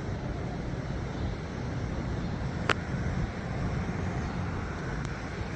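Steady outdoor rumble of wind and distant traffic with no siren tone sounding, and one sharp click a little under three seconds in.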